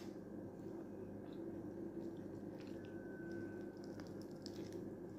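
Faint chewing of fried fish, with a few small clicks as the fish is picked apart by hand, over a steady low hum.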